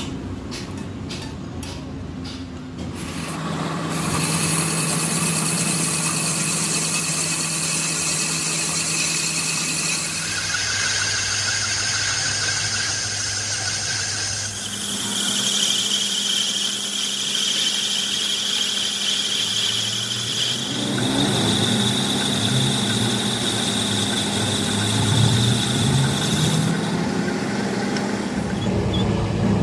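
Metal lathe turning a steel sleeve: the cutting tool squeals in steady high-pitched tones over the machine's hum, and the pitch changes abruptly several times. A few sharp clicks come in the first few seconds.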